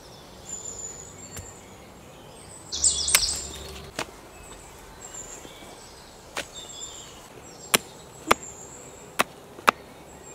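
Sharp single chops of a knife blade biting into a wooden stick, about six of them, coming closer together near the end, over faint bird chirps. A short rattling burst about three seconds in.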